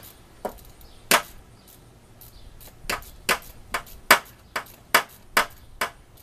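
Hand ratchet and socket clicking as large bolts are tightened: two separate clicks, then an even run of sharp clicks about two and a half a second, the loudest near the middle of that run.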